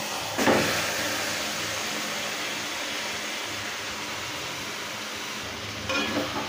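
Marinated chicken pieces sizzling as they drop into hot oil and fried onion masala in a pan. A sudden surge of sizzle comes about half a second in, then a steady hiss that eases slightly. A spatula scrapes the pan a few times near the end.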